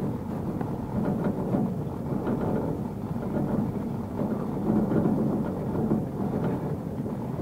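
Steady rumbling and rattling of an old single-person cage lift carrying its rider up the cable, with small irregular clatters throughout.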